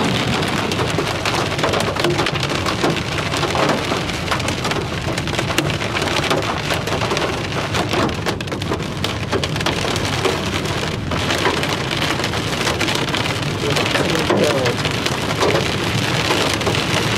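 Heavy rain pelting the vehicle's roof and windshield, heard from inside the cabin: a steady dense patter of many fine drop impacts.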